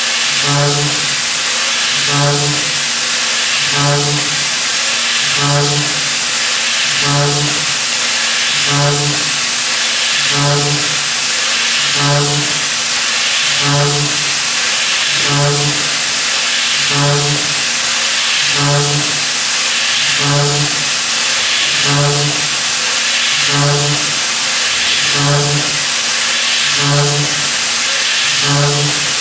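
Milling machine running, with a loud steady hiss and a low hum that swells regularly about every second and a half.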